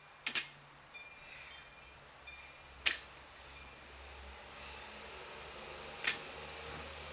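Loaded barbell with bumper plates clinking sharply three times, about three seconds apart, once per deadlift rep.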